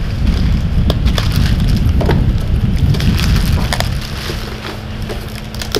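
Cardboard and packing material being handled and pulled open, with scattered crackles and snaps over a low rumble; about four seconds in the rumble eases and a steady low hum remains.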